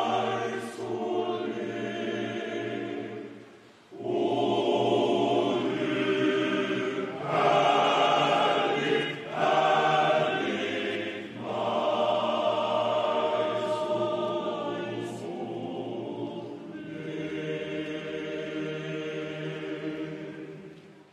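Men's student choir singing in full chords, phrase after phrase with a short break about four seconds in, closing on a long held chord that fades out at the end.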